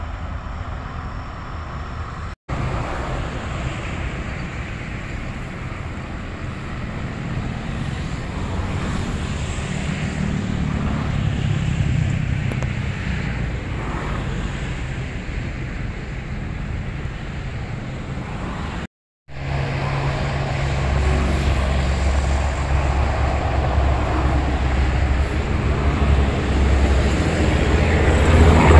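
Jet aircraft engines running on a distant runway, a steady broad noise that grows heavier and louder in the last third as an aircraft rolls along the runway. The sound drops out briefly twice, about two seconds in and about two-thirds of the way through, where the recording is cut.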